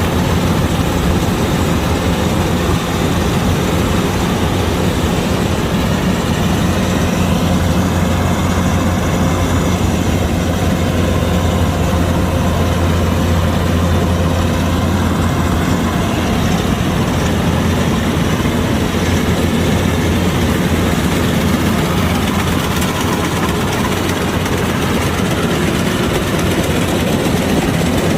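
Kubota DC-105X combine harvester's diesel engine running steadily with a heavy low hum, with a faint higher whine that rises and falls for several seconds near the middle.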